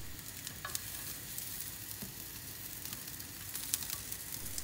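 Raw quail legs sizzling in a hot frying pan, a steady high hiss, with a few light clicks about two thirds of a second in, two seconds in and again near the end as pieces are set down.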